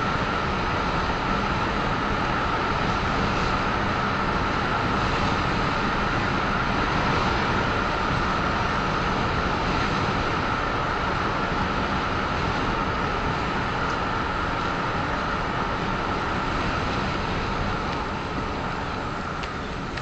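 Steady road and wind noise of a moving car, heard from inside the cabin, easing a little near the end.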